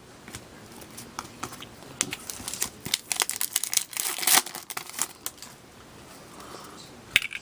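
Crinkling and crackling of trading-card pack wrappers and cards being handled, busiest over the first few seconds with a couple of sharper clicks near the end.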